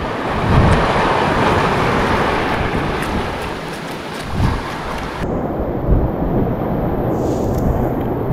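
Surf washing up the shore with wind buffeting the microphone in low rumbling gusts. The noise changes abruptly about five seconds in.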